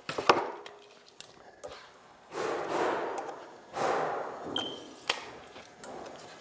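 A pine board handled on a wooden saw table: a sharp knock as it is set down near the start, then two scraping passes about a second long each as it is slid into position, with a few light clicks and a brief high ping.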